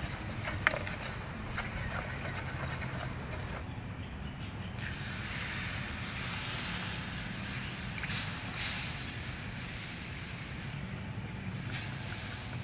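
Wooden spoon stirring a flour-and-fat roux in a hot steel pan over campfire coals, with a sharp tap under a second in. About five seconds in, milk poured into the hot pan sets off a loud hiss and sizzle that keeps going as it is stirred in. A steady low hum runs underneath.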